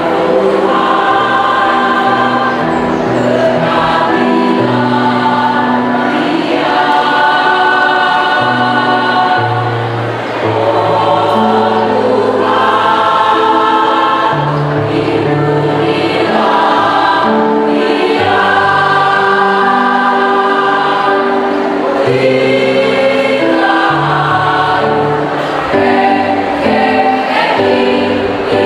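A mixed choir of women's and men's voices singing in parts, moving through long held chords that change every second or two.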